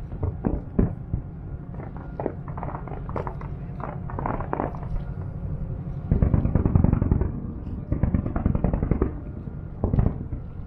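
Distant fireworks: a run of bangs and crackles over a steady low rumble, coming thickest from about six seconds in, with another burst near the end.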